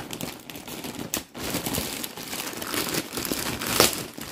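Plastic poly mailer bag crinkling and rustling as it is handled and pulled open by hand, with a louder crackle near the end.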